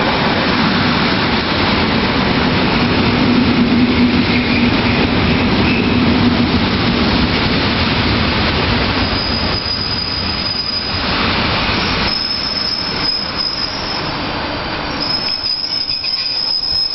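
Modernised EN57 electric multiple unit running into the platform and braking, its carriages rumbling past. A low steady hum lasts the first several seconds, and high-pitched wheel squeal comes and goes through the second half as it slows.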